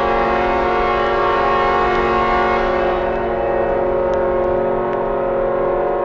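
A loud, sustained chord of many steady tones, held without a break and softening slightly near the end.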